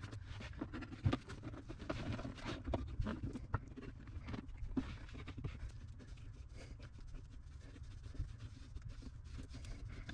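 Faint, irregular scratching and light tapping of hands and a tube of gasket sealer working sealer along the edges of a riveted sheet-metal floor patch.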